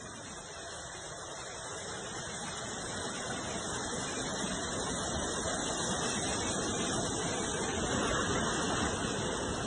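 Steady rushing of fast-flowing floodwater, growing gradually louder.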